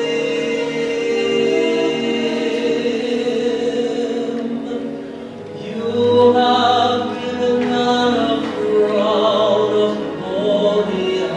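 Sacred song music with choir-like voices holding sustained chords. It dips briefly about five seconds in, then swells louder with wavering, vibrato voices.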